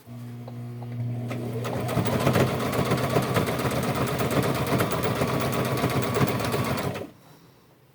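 Sewing machine stitching a hem through denim: the motor starts with a hum, speeds up over the first couple of seconds into fast, even stitching, and stops suddenly about seven seconds in.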